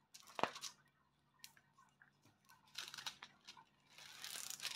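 Plastic packaging of a diamond-painting kit being handled: a sharp click, scattered ticks, then faint crinkling and crackling that grows denser near the end.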